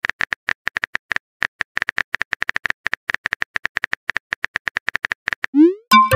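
Keyboard tap sound effects from a texting app, a quick, uneven run of short clicks as a message is typed letter by letter. Near the end comes a rising swoop, then a bright electronic chime.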